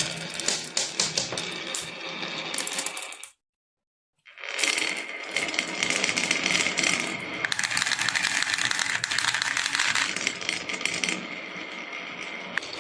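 Marbles rolling and clattering down a wooden marble run, a dense stream of small clicks and rattles. It cuts off abruptly a little over three seconds in, and about a second later the rattling starts again.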